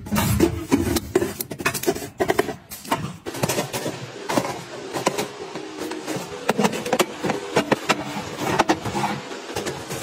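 Irregular clicks and knocks of packaged goods being set down and slid into place on a metal storage rack with tempered-glass shelves: a plastic drink bottle, cardboard snack boxes and milk cartons.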